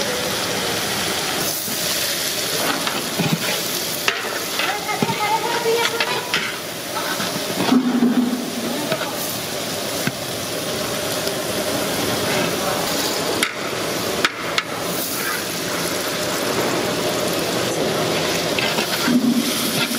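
Sliced onions frying in hot oil in a large aluminium pot, a steady sizzle, with a metal ladle knocking and scraping against the pot as they are stirred.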